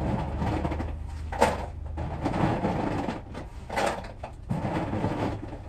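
Plastic toy capsules clattering and knocking as they are loaded by hand into the clear globe of a 50-cent capsule vending machine, with a couple of sharper knocks about one and a half and four seconds in.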